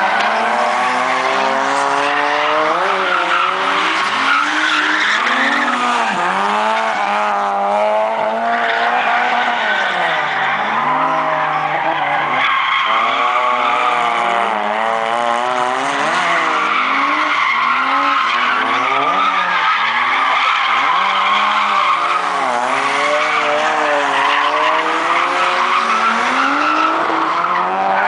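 Toyota AE86 Corolla drifting: its engine revs up and down over and over, while the tyres squeal and skid sideways on the tarmac.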